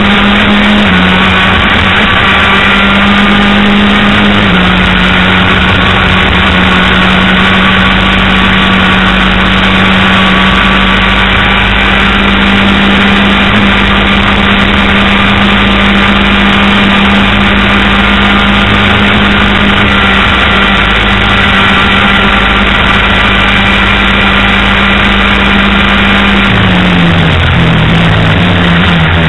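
Onboard sound of a race vehicle's engine at a steady high pitch under loud wind and road rush. The note steps down about a second in and back up a few seconds later, then drops and wavers near the end as the vehicle comes off the throttle.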